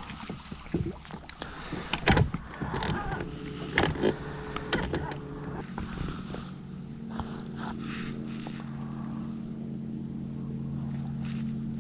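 Electric trolling motor humming steadily, coming in about three seconds in and growing louder about halfway, after a few light knocks.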